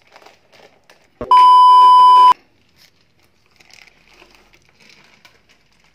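A loud, steady electronic beep tone, added in editing, starting about a second in and lasting about a second, then cutting off sharply. After it comes faint rustling of a plastic fish bag being handled.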